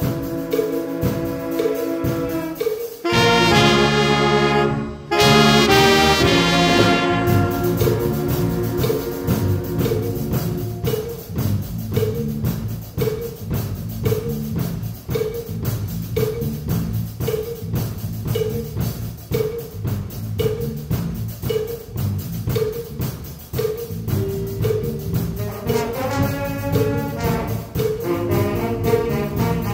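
Brass-heavy band music played by a middle-school instrumental group. Loud full chords come about three seconds in, then a steady beat with a short repeated note, and the fuller chords return near the end.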